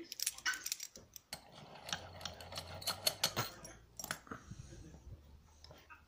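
Metallic clinks and rattles of a small brass Squire padlock and the ring hanging on its shackle, handled and knocked against a bench vise as it is set into the jaws and clamped. Many quick irregular clicks come in two busy spells, with softer handling rubs between.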